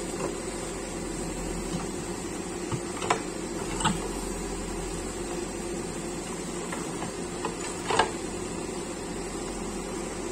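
Backhoe loader's diesel engine running steadily, with a few short metallic clanks from the digging gear, the loudest near the end.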